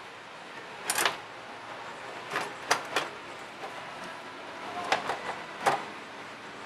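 Short sharp clicks and scrapes of metal tools on a circuit board: long-nose pliers holding a replacement diode's lead while a soldering iron works the joint. They come in three small clusters, about a second in, around two and a half to three seconds, and around five to six seconds.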